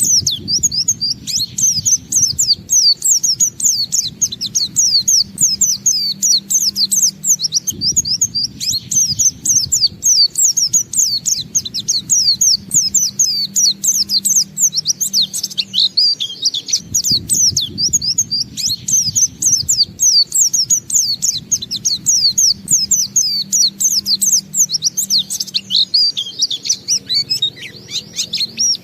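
White-eye (pleci) singing in the ngalas style: a long, unbroken stream of rapid, high twittering notes with no pauses for breath, over a faint low background hum that comes and goes.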